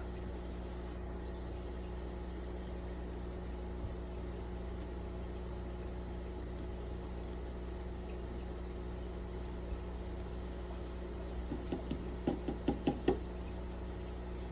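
Steady low hum of aquarium equipment. About two seconds before the end, a quick run of about eight knocks, each louder than the last.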